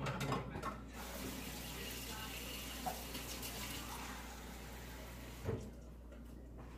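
Kitchen faucet running warm water into a cup. The flow starts about a second in and stops near the end with a knock.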